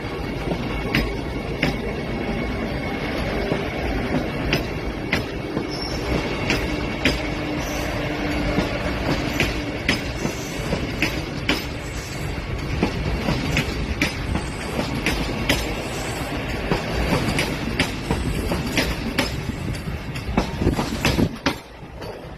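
Vande Bharat Express train running on the rails: a steady rumble and hiss with sharp clicks of the wheels passing over rail joints. The sound drops off suddenly near the end.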